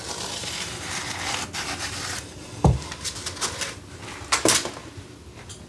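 Marker tip rubbing and scratching along a vinyl floor plank as a cut line is drawn, with a dull knock about halfway through and a few sharp scrapes later on.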